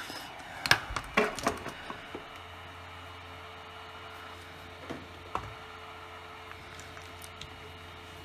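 Hot air rework gun's blower running with a steady hiss. A few sharp clicks and knocks come in the first couple of seconds and two more about five seconds in, and a low hum joins after about two seconds.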